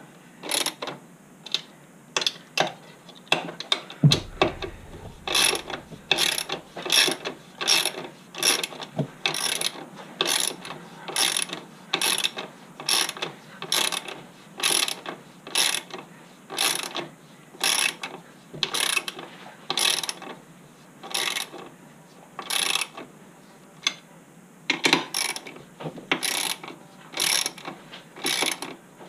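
Hand ratchet wrench swung back and forth to run a bolt, a quick run of pawl clicks on each stroke, roughly every half second with a few short pauses. A low thump about four seconds in.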